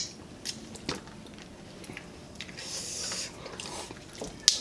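People eating crab by hand with rice: chewing, with sharp clicks and cracks of crab shell, the loudest just before the end, and a short hiss about two and a half seconds in.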